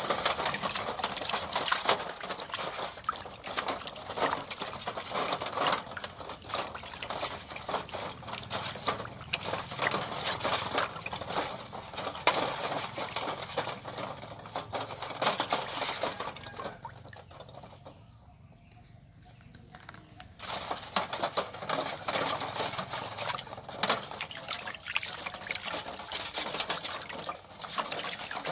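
Hands splashing and swishing water in a metal basin while scrubbing duck eggs, with water pouring off the hands; the splashing eases into a short lull about two-thirds of the way through.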